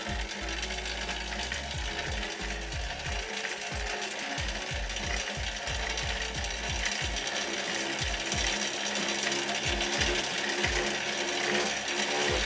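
Chain-driven spin bike running, its flywheel spinning with a steady mechanical whir and a regular low knock about three times a second. The chain drive is what makes this budget bike loud.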